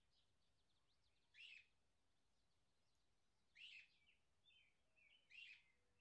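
Faint birdsong: three short, louder chirping calls, with softer twitters between them.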